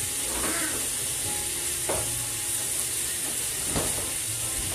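Food sizzling steadily in frying pans on an electric stovetop, with two light clicks about two seconds apart.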